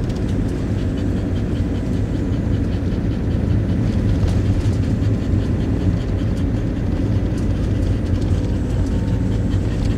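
Steady low engine and road rumble of a motorhome under way, heard from inside the cab.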